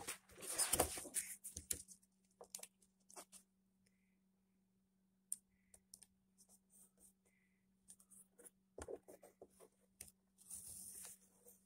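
Vinyl sticker being peeled from its backing and pressed onto a plastic bed panel: rustling and crinkling of the backing at the start and again near the end, with scattered small clicks and taps of fingers on the plastic in between.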